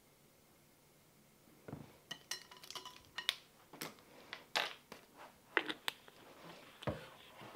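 Kitchen items handled on a countertop: a run of small clinks, taps and knocks from a vanilla bottle, a measuring spoon and other containers being set down and picked up. It starts about two seconds in.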